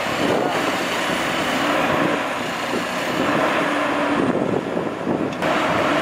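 Cat 320C excavator running steadily, its engine and hydraulics giving a continuous noisy drone.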